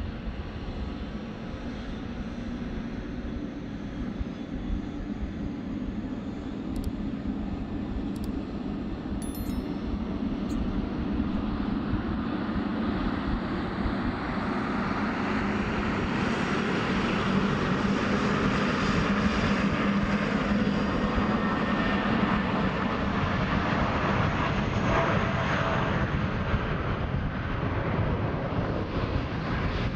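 Jet airliner engines running: a steady drone at first, then, from about twelve seconds in, an Airbus A320's engines at takeoff thrust swelling into a loud rushing sound as it accelerates down the runway. The sound is loudest a little past the middle and eases slightly near the end.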